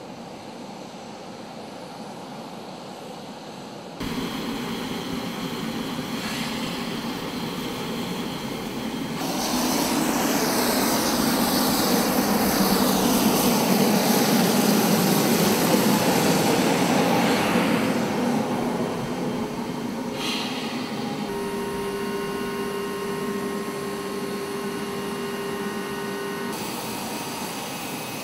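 Steady aircraft engine noise on a flight line, shifting from shot to shot. It grows louder for several seconds in the middle, with a falling whine, and a steady hum comes in near the end.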